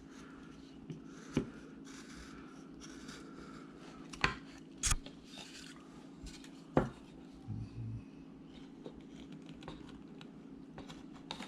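Carving knife slicing and scraping wood, with a few sharp clicks as small cuts snap through and chips come away, the loudest about five seconds in.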